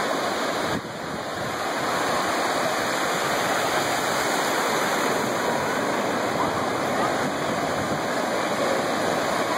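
Ocean surf breaking and washing in around the shallows: a steady rush of noise that dips briefly about a second in.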